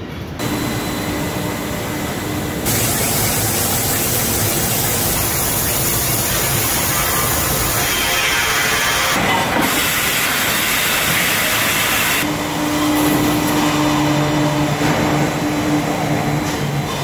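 Steel-processing machinery running in a factory, a loud steady noise with a hiss. Its character shifts abruptly several times, and a steady hum comes in about twelve seconds in.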